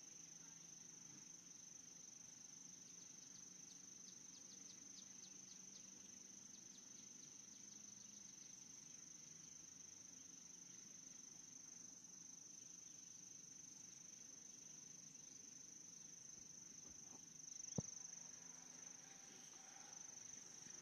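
Near silence, with a faint steady high-pitched cricket trill and a low hum; a single faint click near the end.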